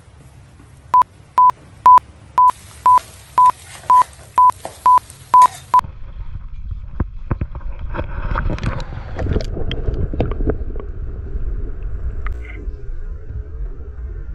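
A run of about eleven short, high beeps on one pitch, two a second. The beeping stops about six seconds in, and a low rumble with scattered clicks and knocks takes over.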